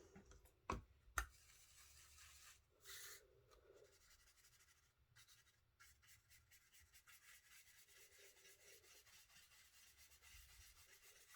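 Very faint rubbing and dabbing of ink onto card while a stamped panel is coloured. There are two light taps in the first second.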